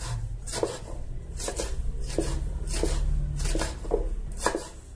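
Kitchen knife chopping long green peppers finely on a wooden cutting board: a steady run of quick knife taps, about three a second.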